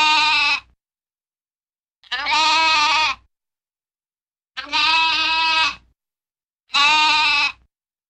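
Sheep bleating four times, each call about a second long.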